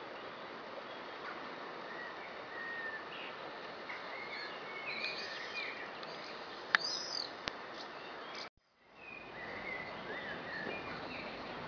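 Small birds chirping and singing in short phrases over a steady outdoor hiss. A sharp click about two-thirds of the way through, then the sound cuts out for about half a second.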